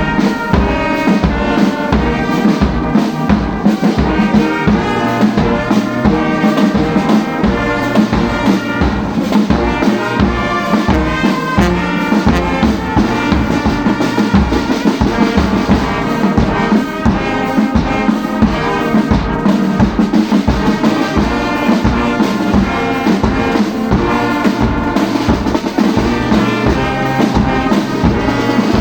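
Brass band playing, horns over a steady drum beat of about two beats a second.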